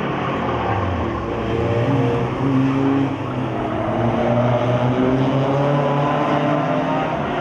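Hatchback race car engine running hard on a circuit, its pitch holding, then stepping and sliding up and down as the driver works the throttle and gears through a corner.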